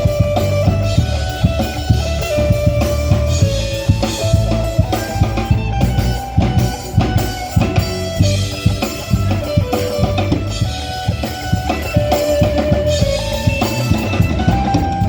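Band music: guitars playing a stepping melody over bass and a steady drum kit beat.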